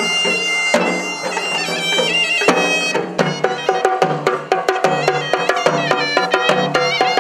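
Traditional music: a shrill, reedy wind pipe plays a melody with long held notes over drums. About three seconds in, the drumming turns to quick, tightly packed strokes, with rapid notes from the pipe.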